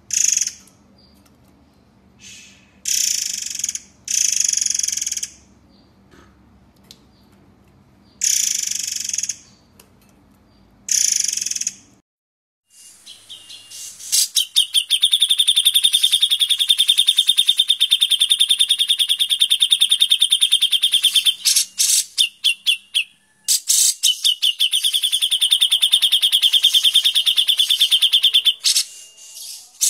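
Songbird masteran recording: short, harsh, scratchy call bursts repeated every second or two, then, from about halfway, a rapid, dense buzzing trill that runs on with one brief break.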